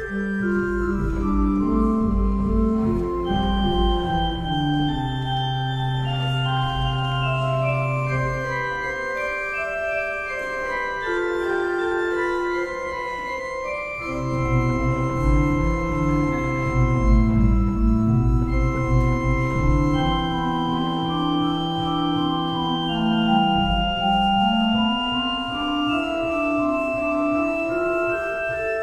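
Casavant pipe organ playing three-voice counterpoint on 8-foot stops, upper voice on the Swell, middle on the Great and bass on the Pedals. Long sustained bass notes sound under stepwise moving lines in the upper voices.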